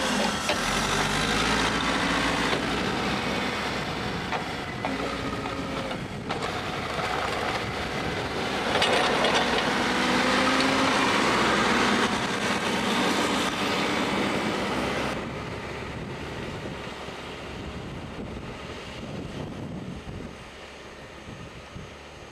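Backhoe loader's diesel engine running under load while its front bucket pushes and scrapes through snow, with metallic clanking. The sound drops suddenly about two-thirds of the way in and fades as the machine moves off.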